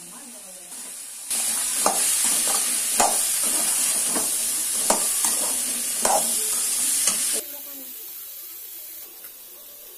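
Boiled black chickpeas sizzling in a steel pan with chopped onion and tomato while a slotted steel spoon stirs them, knocking and scraping against the pan. The sizzle turns loud about a second in and drops to a faint hiss after about seven seconds.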